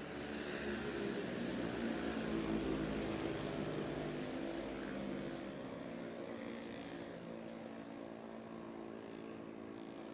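Racing motorcycle engines running at high revs. The sound swells about two seconds in, then slowly fades as the bikes go by.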